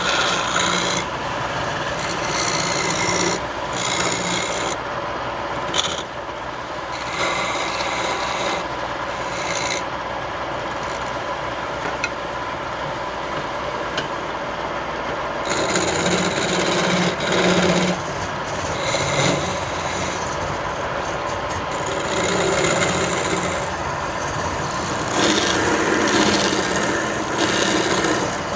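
Wood lathe running with a faint steady hum while a hand tool rasps against the spinning wood, the rasping swelling and easing in repeated passes.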